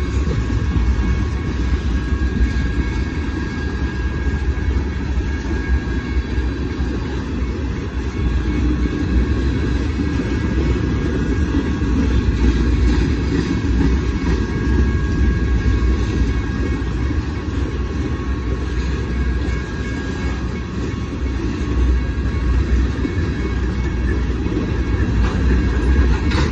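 Freight train tank cars rolling past at a grade crossing: a steady low rumble of steel wheels on the rails.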